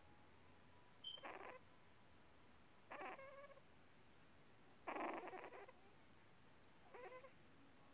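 Eleven-day-old newborn puppy giving four short, faint squeaky whimpers about two seconds apart, the third the loudest.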